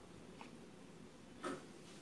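Quiet ticking from a flatlock sewing machine's needle and looper mechanism as it is turned slowly by hand: a faint tick early on and a sharper light click about one and a half seconds in.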